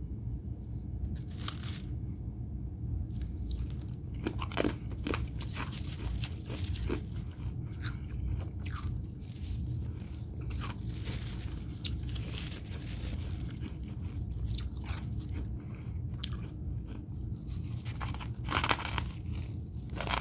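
Freezer frost being bitten and chewed close to the microphone: irregular soft crunches and crackles, with a louder crunch near the end.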